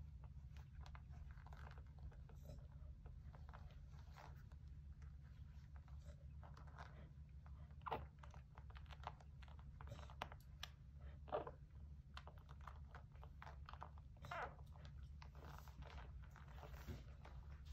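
English springer spaniel in labour making faint, irregular wet mouth clicks and smacks, as of licking, with a few louder smacks, over a low steady hum.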